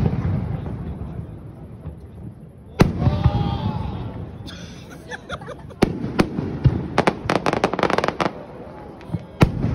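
Aerial firework shells bursting in a display: three loud booms, about three seconds apart, each trailing off in a long echoing rumble, with a rapid run of sharp cracks between the second and third.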